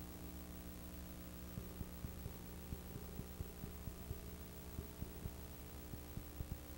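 Steady low electrical hum under a faint tape hiss, with a scatter of faint uneven clicks through the middle: the sound of a blank stretch of videotape with no programme on it.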